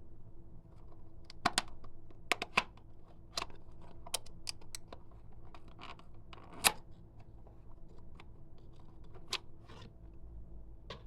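Clear slime being kneaded and pressed by hand, giving irregular sticky clicks and pops, about a dozen in all, the loudest a little past halfway.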